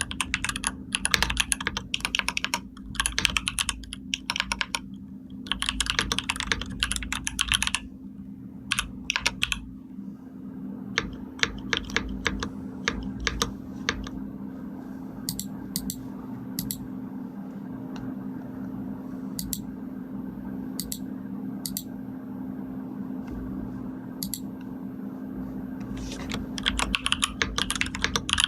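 Computer keyboard being typed on: quick runs of key clicks that thin out to occasional single key presses through the middle, then fast typing again near the end. A steady low hum sits underneath.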